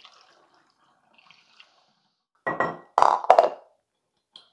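Kombucha pouring from a glass measuring jug through a funnel into a glass bottle, a faint trickle. About two and a half seconds in come several loud glassy clinks and knocks as the jug and funnel are set down on the stone counter.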